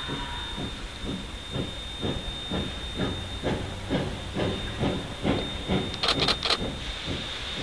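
Steam locomotive 108 standing on the line, hissing steam with an even pulsing about twice a second. A little after six seconds in comes a cluster of three sharp, louder hisses.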